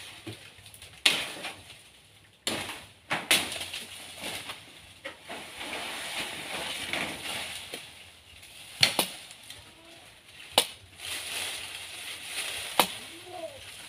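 Dry banana leaves rustling and crackling as someone moves about up in a banana tree, with about five sharp knocks or snaps spread through.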